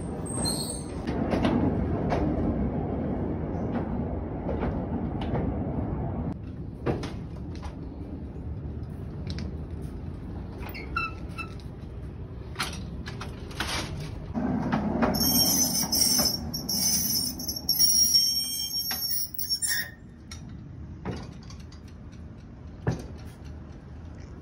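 Hand-pushed steel transfer trolley rolling on rails over a wooden floor. It rumbles with scattered metal knocks and clanks, and the rumble swells twice, at the start and again past the middle. High squeaking comes in just after the second swell.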